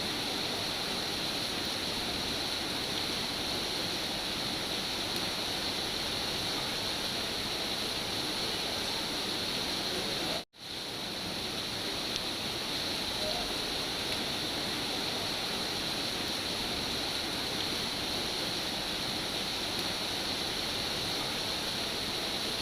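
Steady, even rain hiss with no distinct drops or thunder. About halfway through it cuts out for a moment, then swells straight back in.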